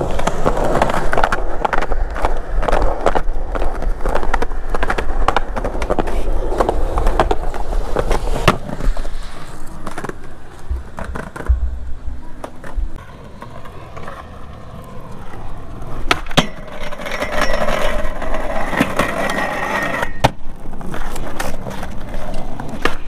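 Skateboard wheels rolling over concrete, a continuous grinding rumble, with sharp clacks of the board hitting the ground now and then. It goes quieter for a couple of seconds midway, then rolls on.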